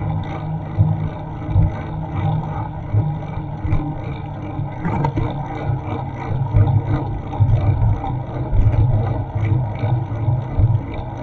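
Wind buffeting an action camera's microphone on a moving bicycle: a loud, gusty low rumble that swells and dips unevenly.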